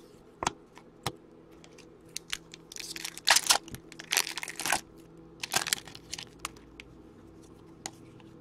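Hockey trading cards being handled and flipped through by hand: a few sharp clicks, then clusters of scratchy rustling and snapping as the card stock slides and flicks against itself.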